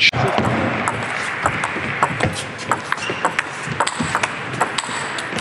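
Table tennis ball clicking back and forth between rackets and table in a rally, a sharp tick every few tenths of a second, over a steady background hiss of hall noise.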